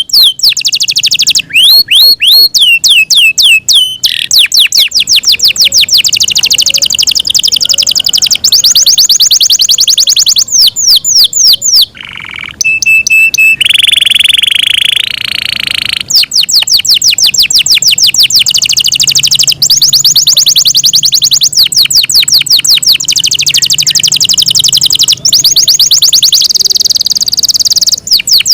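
Yorkshire canary singing loudly: a long song of rapid trills of repeated notes and swooping whistles, with a held, steady whistled note near the middle.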